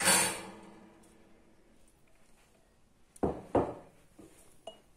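Kitchenware knocking: one sharp knock that rings for about a second, then two duller knocks a little after three seconds in.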